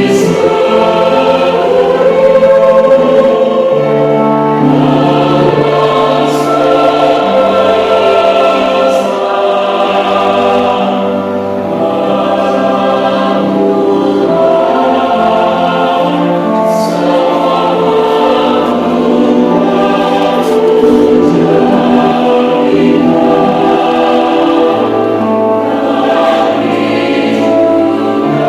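Choir singing a Christian song in several voice parts, with long held chords.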